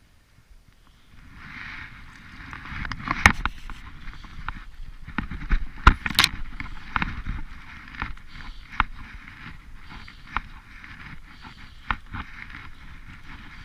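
Water sloshing and swishing around a kayak as it turns, with several sharp knocks, the loudest about three and six seconds in.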